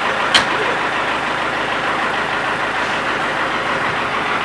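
A fire engine's motor idling close by, a steady even noise, with one sharp knock just after the start.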